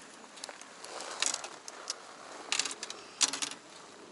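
Fishing rods and baitcasting reels clattering against one another and the boat as they are handled: three short bursts of clicks and knocks, about a second apart.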